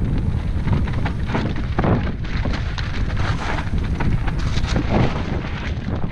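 Commencal Meta SX mountain bike riding fast over loose rocky scree: tyres crunching over stones and the bike rattling with a rapid, irregular run of knocks, over a heavy rumble of wind buffeting the GoPro microphone.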